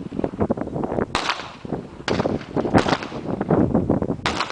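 Pistol shots: three sharp cracks, each about a second and a half apart, each followed by a short echoing tail.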